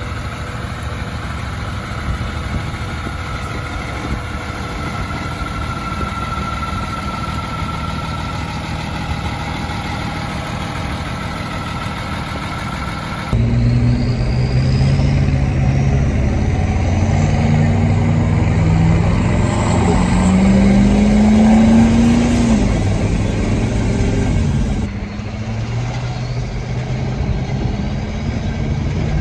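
Truck engine running on the road. It gets suddenly louder about 13 seconds in, the engine note rises as it accelerates around 20 seconds and falls back, and the level drops suddenly again near 25 seconds.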